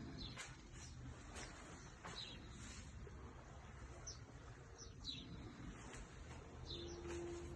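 Faint chirping of small birds: short, high, falling chirps scattered irregularly a few at a time, over a low steady hum, with a held low tone near the end.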